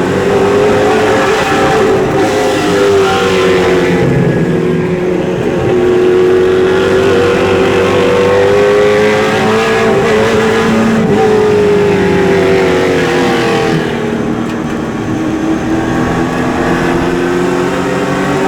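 Super late model race car's V8 engine running hard at racing speed. Its pitch rises as it accelerates, then drops as it lifts, and this repeats several times.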